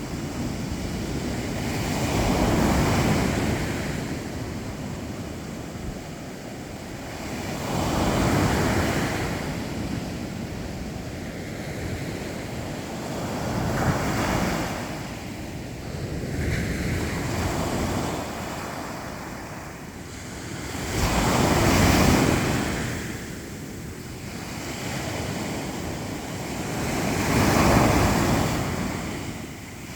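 Black Sea surf: waves breaking on the shore in slow surges about every five to six seconds, with wind buffeting the microphone.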